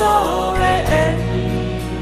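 Background music: a song with a held, gently bending melody line over a steady accompaniment.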